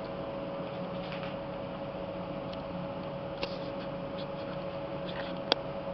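Steady machine hum and whine from a CNC lathe running, with a few light clicks and one sharper click near the end.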